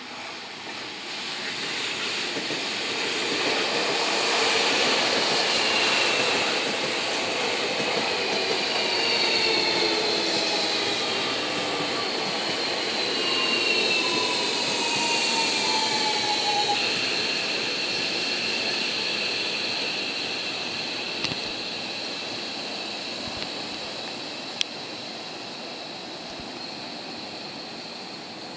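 Seibu 40000-series electric commuter train pulling into a station and braking. Wheel and running noise builds and then eases, while the traction motors and inverter whine in several tones that fall slowly in pitch as the train slows, jumping suddenly about two-thirds of the way through. A steady high hum and a few sharp clicks follow as it comes to a stand.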